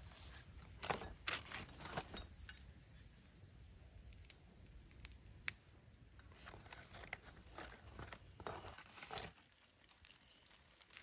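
Scattered light clicks and rustles of small fish being handled and threaded onto thin sticks over a woven bamboo tray. A high, pulsing chirp repeats about once a second behind them.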